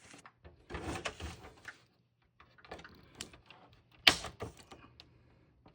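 A metal dental pick scraping and poking in the holes of an Xbox 360's plastic case, with plastic rustling and small clicks. A sharp click about four seconds in is the kind a retaining clip gives as it releases.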